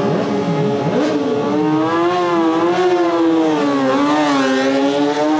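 Motorcycle engine running at high revs, its pitch wavering slightly up and down.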